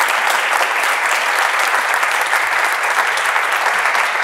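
Audience applauding steadily, a dense patter of many hands clapping at the end of a talk.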